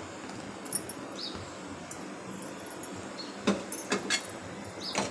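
A steel pot of milk and sago simmering on the stove, giving a steady hiss, with a few short clinks and knocks about three and a half seconds in.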